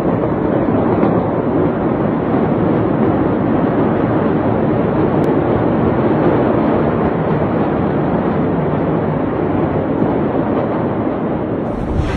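Loud, steady rumbling noise with no distinct bangs.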